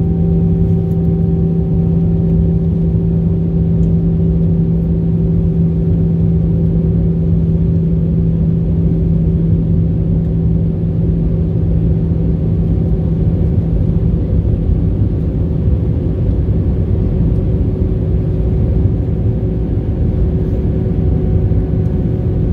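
Jet airliner cabin noise at a window seat over the wing during descent: a steady rumble of engines and airflow with a steady low hum. The lowest hum weakens slightly about fourteen seconds in.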